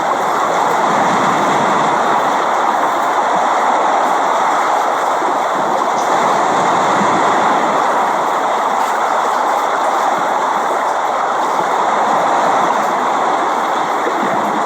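Steady, continuous rain noise.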